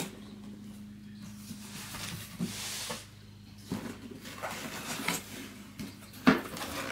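A cardboard gift box being handled and its flaps opened: a soft rustle of cardboard, then several light knocks and taps, the sharpest about six seconds in. A faint steady low hum runs underneath.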